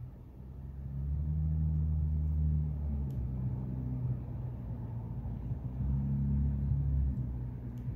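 A low engine rumble with a steady drone that swells twice, with a few faint clicks.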